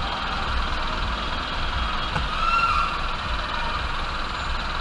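Steady traffic noise heard from inside a car stopped in traffic, with engines idling nearby and a faint short tone about two and a half seconds in.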